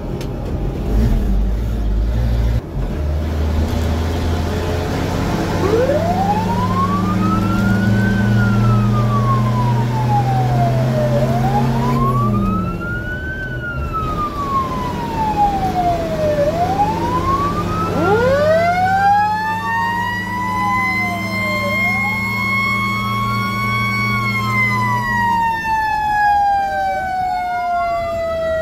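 Siren wailing up and down about every five seconds over the fire truck's 500 cubic inch International straight-six gas engine, heard from inside the cab. A second siren winds up about two-thirds of the way in, holds a high tone, then slowly falls near the end. The engine note drops twice with gear changes, once near the middle and once near the end.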